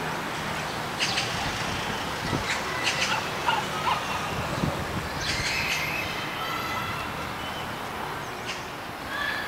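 Steady city background noise heard from high up, with short high bird calls every second or so, bunched most thickly between about three and six seconds in.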